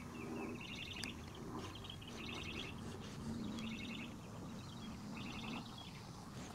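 A small bird chirping in short, rapid trills, repeated about once a second. There is one sharp click about a second in.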